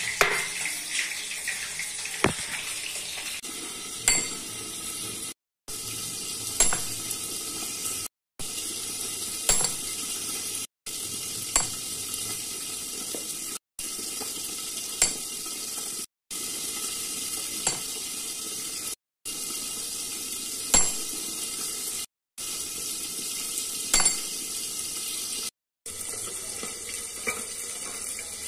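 Steady hiss of a kitchen, with sharp clinks of glass and steel dishes being handled every couple of seconds. The sound drops out to silence briefly about every three seconds where short clips are joined.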